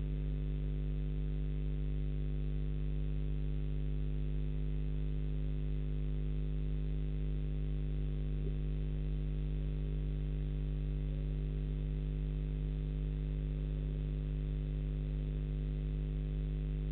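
Steady electrical hum, a stack of low tones that stays unchanged throughout, picked up by the nest camera's audio.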